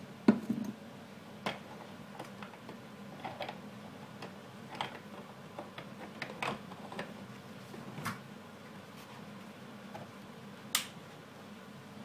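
Handling clicks and knocks of a metal espresso portafilter being fitted and twisted into the group head of a Cookworks espresso machine: a sharp knock at the start, scattered lighter clicks, and a clear click near the end as it locks in.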